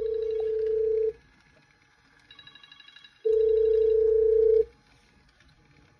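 Incoming phone call ringing through a Bluetooth cassette adapter: a loud steady ring tone sounds twice, each about a second and a half long, with a fainter rapid trilling ringtone between them.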